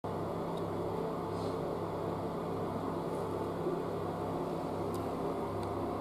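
Steady low hum of a restroom ventilation fan, with a couple of faint clicks near the end.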